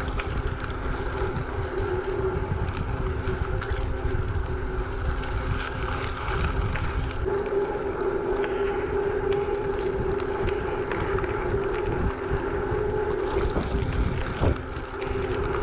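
A bicycle rolling along a hard-packed gravel trail: a steady tyre hum, with small clicks and rattles from bumps and wind on the microphone.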